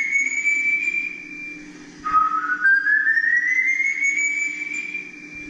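Whistling in imitation of El Silbón's legendary whistle: two long, drawn-out whistles, each starting low and gliding slowly upward, the second beginning about two seconds in. A low steady hum runs underneath.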